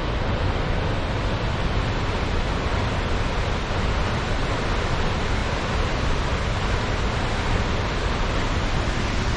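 Tower Fall's water pouring down and crashing below, a steady rushing roar with no breaks.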